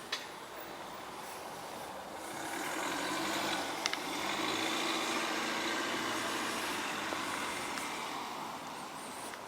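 A motor vehicle passing by: engine and road noise swells from about two seconds in and fades away near the end. A sharp click comes at the start, and a quick double click comes near four seconds.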